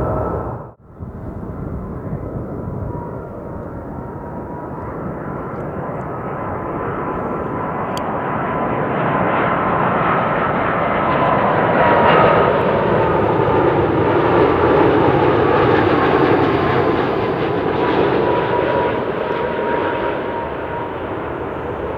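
SAS Scandinavian Airlines jet airliner on its landing approach passing close by, its jet engine noise with a thin steady whine swelling to a peak about halfway through and then slowly fading.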